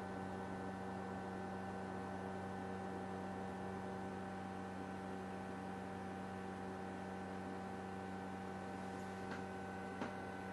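Steady electrical mains hum, with a faint click near the end.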